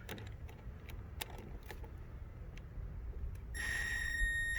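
Scattered light metallic clicks and taps of hand work on a hose clamp and hose fitting, over a low rumble. Near the end a steady high-pitched beep sounds for about a second.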